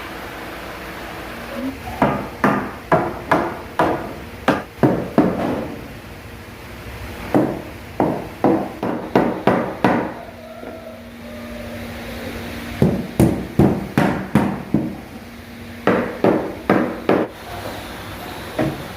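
Hammer blows on wood in several runs of quick strikes, about two to three a second, with short pauses between runs.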